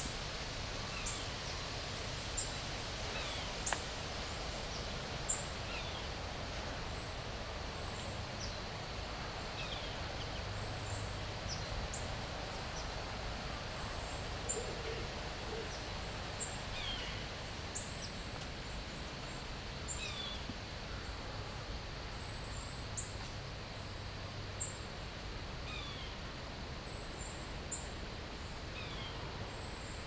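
Backyard songbirds calling: short, high pinging calls repeated every second or two, with falling notes mixed in, over a steady background hiss. Among them is a single repeating 'pewing' or pinging call whose bird is unidentified, with northern cardinals and recently fledged American goldfinches calling in the background.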